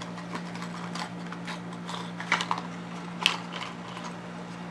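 Irregular small clicks and scrapes of a lightstick keyring's packaging being opened and handled by hand, with two sharper clicks after about two and three seconds, over a steady low hum.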